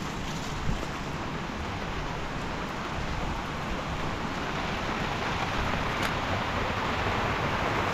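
Steady rain with a wind-like rush, growing a little louder toward the end, with a short thump less than a second in.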